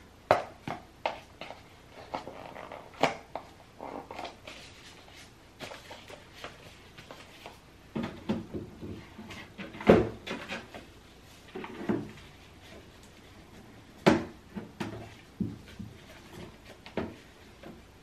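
Irregular clicks, taps and knocks of toiletries and clear plastic organizer drawers being handled and set in place in an under-sink cabinet. The loudest knocks come about ten and fourteen seconds in.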